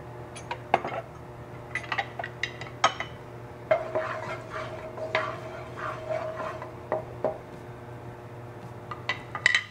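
Wooden spatula stirring oil in a wok, with scattered clicks and knocks of the spatula against the pan. A low steady hum runs underneath.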